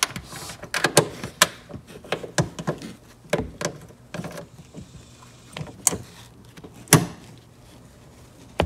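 Ratchet and socket working an 8 mm tail-light bolt: a string of irregular metallic clicks and knocks.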